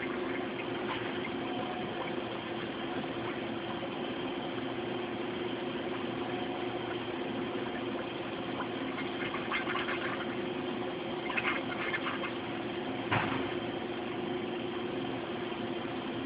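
CNC wire EDM (electrical discharge machine) running: a steady machine hum with a constant tone, and a few short clicks in the second half.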